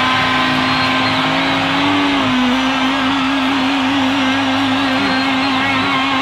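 Honda Tornado 250's single-cylinder engine running at a steady cruising speed. Its pitch briefly rises and then drops a step about two seconds in.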